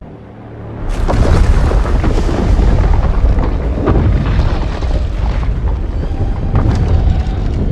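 Monster film sound effect for the evolved Godzilla: a faint low rumble that swells about a second in into a loud, sustained, crackling blast over a deep rumble.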